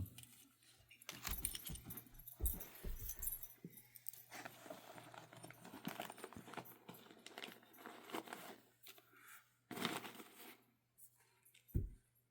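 Small camping gear being handled and rummaged out of a bag: rustling with light metallic jingles and clinks, coming in bursts.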